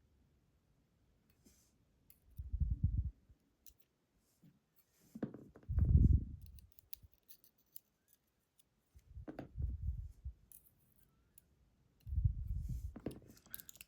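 Hands handling a lock cylinder during disassembly: four bouts of low knocks and rubbing with small metal clicks, each about a second long, the loudest in the second bout.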